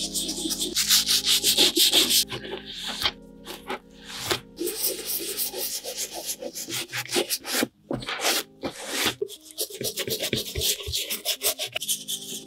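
Small wooden-handled bristle brush scrubbing saddle-soap lather into old, worn boot leather in quick, irregular strokes, with a short pause about three seconds in. Soft background music runs underneath.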